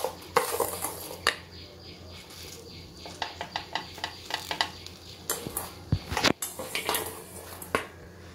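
Metal spoon clinking and scraping against a flat griddle pan and bread slices while spreading a topping, in several irregular bursts of small clicks, with a sharp clink at the start and a heavier knock about six seconds in.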